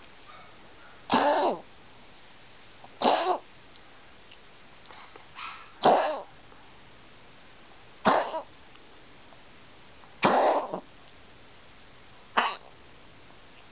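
A pet coughing in a regular series: six short coughs, about one every two seconds.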